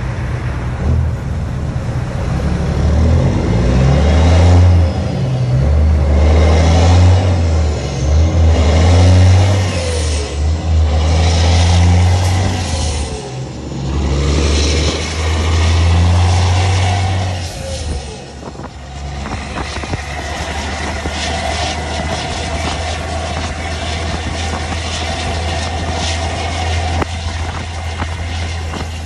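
Semi truck's straight-piped Cat C15 diesel pulling hard under acceleration. The loud low drone drops out briefly several times as it goes through the gears, then settles into a steadier, quieter run about 18 seconds in.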